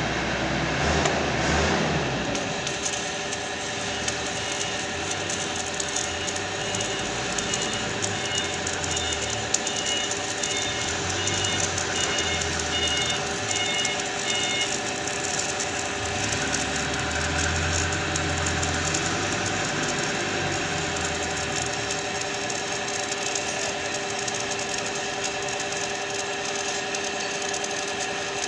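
Stick welding on the steel of an excavator boom: the electrode arc crackles and sputters steadily, starting about two and a half seconds in, over a steady machine hum.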